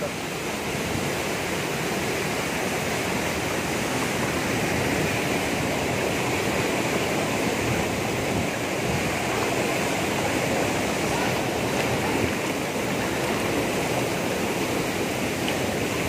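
Waterfall plunging into a churning pool: a steady rush of falling and tumbling water.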